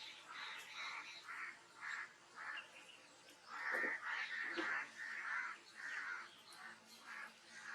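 Birds calling, short calls in quick succession about twice a second, the loudest near the middle.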